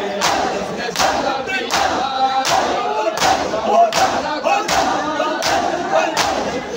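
A crowd of men doing matam, hands slapping bare chests together in a steady beat of about three strikes every two seconds. Over the strikes the crowd chants a noha, a mourning lament, in chorus.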